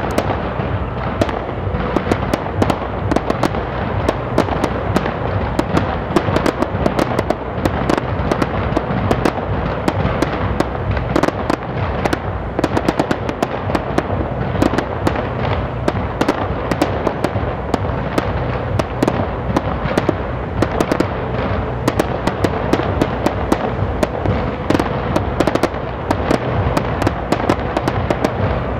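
Fireworks display: a continuous barrage of many rapid pops and crackles from small bursting shells, with no pauses.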